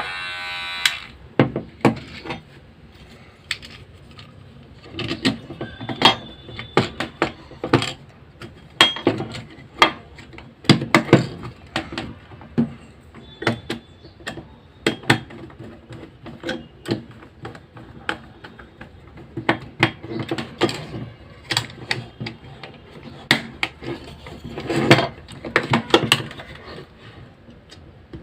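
A Gemmy Professional electric hair trimmer buzzes briefly and cuts off about a second in. The rest is irregular clicks and knocks of the small plastic trimmer being handled.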